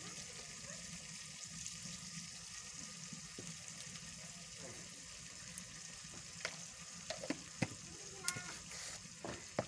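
A pot of food sizzling steadily on a fire in a clay stove, with a few light clicks and knocks in the second half as plastic containers and a spoon are handled.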